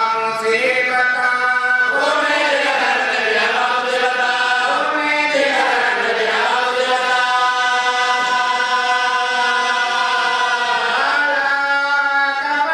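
Male voices chanting a noha (a Shia mourning lament) into a microphone, in long drawn-out notes that dip and rise in pitch.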